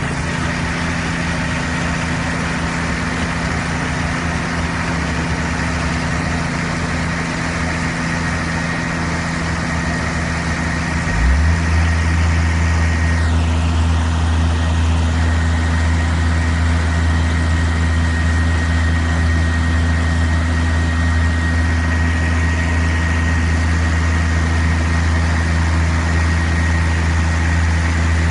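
Tractor engine running steadily, with a much deeper, louder hum coming in about eleven seconds in and holding, as if a heavy drive had been engaged; a short falling whoosh passes a couple of seconds later.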